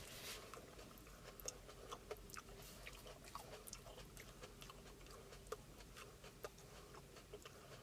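Faint chewing of a raw Komodo Dragon chilli pepper, with many soft, scattered mouth clicks and smacks.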